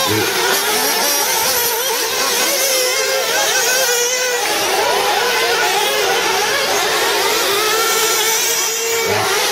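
Several 1/8-scale nitro RC off-road buggies racing, their small high-revving engines whining together and rising and falling in pitch as they accelerate and lift off.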